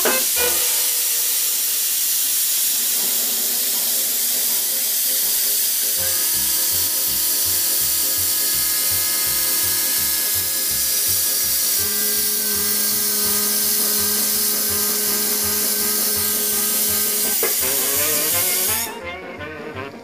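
Loud steady hiss over background music. Low rhythmic pulses and long held notes come in about six seconds in, and the hiss cuts off suddenly near the end, leaving the music.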